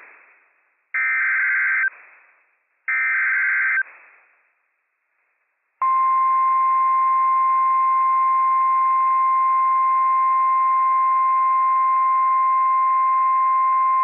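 Two Emergency Alert System SAME header data bursts, each about a second long and a second apart. After a short pause, a single steady high tone starts about six seconds in: the NOAA Weather Radio 1050 Hz warning alarm tone that opens a flash flood warning.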